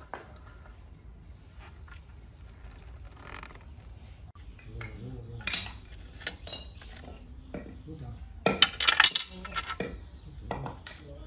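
Metal parts and a hand tool clinking and knocking against the inside of a diesel engine crankcase as it is assembled by hand. There are scattered light ticks, one sharp clink midway, and a louder run of clanks near the end.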